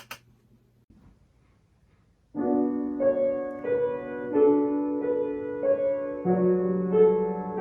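Piano playing slow block chords that change about once a second, starting suddenly about two seconds in after a short near-silent pause.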